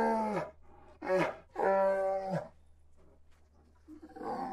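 A string of short animal calls used as the voice of an animated bear, each with a steady pitch and lasting under a second: one fading about half a second in, a brief one, a longer one, and another starting near the end. A faint steady low hum runs underneath.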